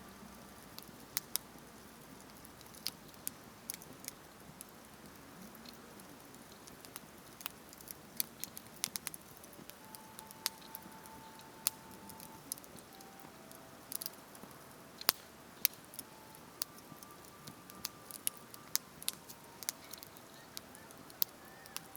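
Wood campfire crackling, with sharp irregular pops and snaps over a soft hiss. A couple of faint thin whistles are also heard in the middle and later part.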